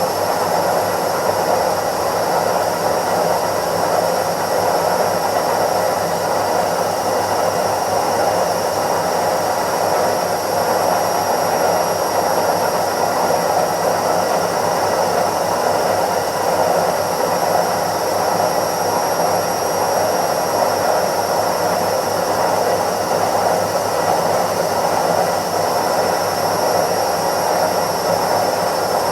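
Indesit IWC71252 washing machine on its spin cycle, the drum spinning at a steady speed with a constant whirring rush and a faint high whine.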